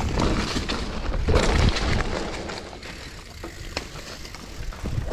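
Mountain bike rolling down a dry dirt trail strewn with leaves: tyres on the dirt and the bike clattering over bumps in a continuous rumble. It is loudest about a second and a half in, then eases.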